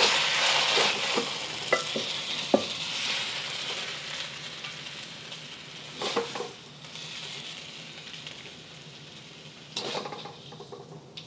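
Stir-fried noodles sizzling in a wok, the hiss dying away with the heat turned off, while a spatula scrapes and knocks against the wok a few times as the noodles are lifted out.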